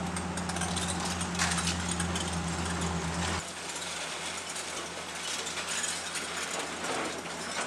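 Demolition and debris-clearing work: mechanical clatter with scattered knocks and scrapes over a steady low engine hum. The hum cuts off abruptly about three and a half seconds in.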